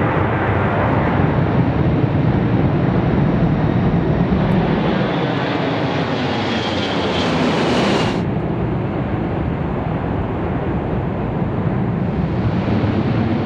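Four-engine Airbus A340 jet climbing out after takeoff: a steady, loud jet engine roar with a deep rumble. A faint falling whine comes just before the high hiss drops away suddenly about eight seconds in, leaving a duller rumble.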